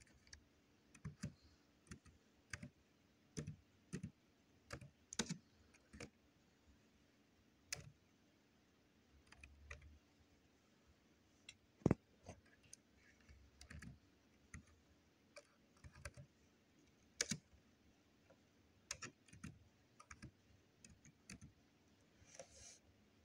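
Laptop keyboard being typed on slowly: faint single key clicks at an uneven pace, with pauses between them and one sharper click about halfway through.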